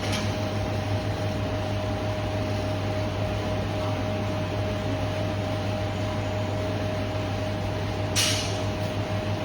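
MV Agusta Brutale 1000 Serie Oro's inline-four engine idling steadily, with a brief hiss about a second before the end.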